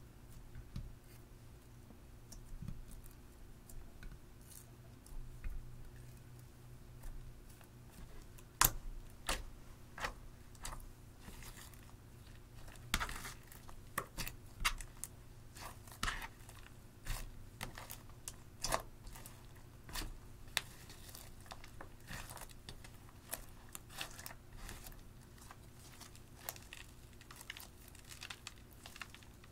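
Clear slime mixed with crushed eyeshadow being pressed, stretched and kneaded by hand, giving irregular sticky pops and crackles that come thick and fast from about eight seconds in.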